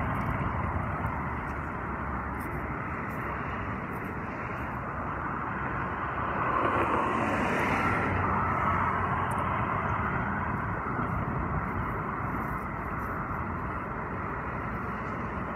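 Road traffic going by, with a car passing about halfway through.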